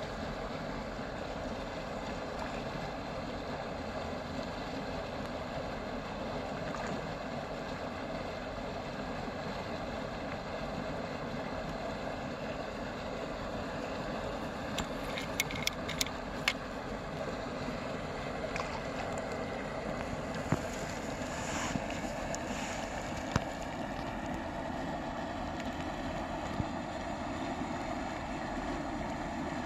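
Steady outdoor wind noise on the microphone. From about halfway through, a handful of light clicks come from the fishing rod and bait rig being handled and cast.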